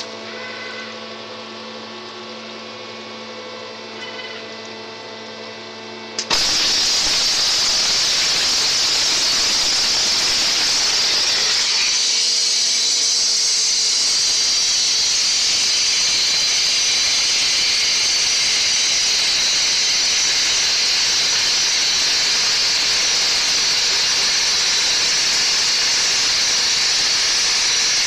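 Waterjet cutting machine humming with several steady tones, then about six seconds in the high-pressure water jet comes on suddenly with a loud, steady hiss as it cuts through the steel square tube.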